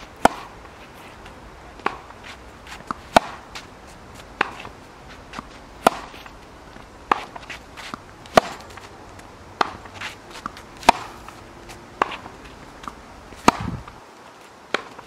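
Tennis rally: a ball struck by racquets, one sharp pop about every 1.2 to 1.5 s. Louder hits from the near player alternate with softer ones from the far end, with fainter knocks between the hits.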